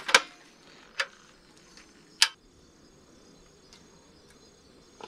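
Three sharp knocks within the first two and a half seconds, over faint steady chirring of crickets.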